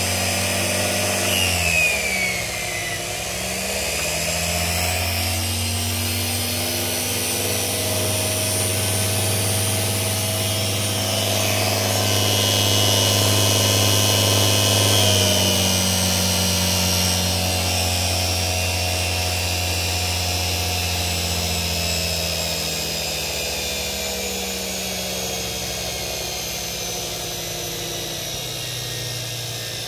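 Electric motor on a test bench spinning a Jawa/ČZ motorcycle dynamo, running with a steady whine and hum whose pitch dips about two seconds in and shifts again about halfway through.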